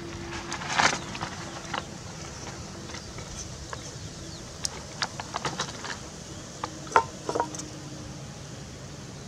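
Scattered knocks and clinks of cooking utensils against pots and dishes over a steady background hiss. The loudest knocks come about a second in and again near seven seconds, with a quick run of clinks between five and six seconds.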